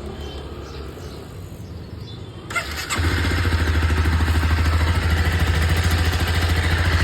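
Honda CBR250R's single-cylinder engine starting about three seconds in, then idling steadily with an even pulse. It runs with its exhaust bend pipe freshly rejoined to the stock muffler, which is the fix for the odd exhaust noise it had.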